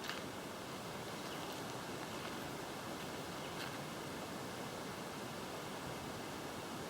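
Faint, steady outdoor background hiss with a thin, steady high-pitched tone running through it.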